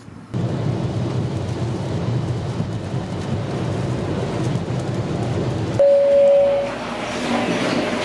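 Steady low road and rain rumble inside a car driving on a rain-soaked highway. Near the end a single steady tone sounds for about a second.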